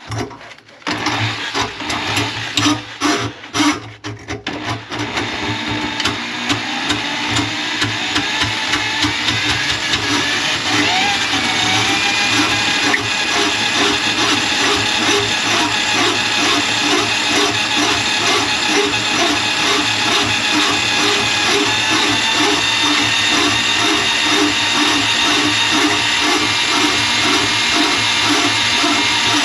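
Motor-driven drain snake running in a clogged kitchen sink drain line. After a few seconds of clattering knocks it settles into a steady motor whine with an even rhythmic pulsing as the cable turns.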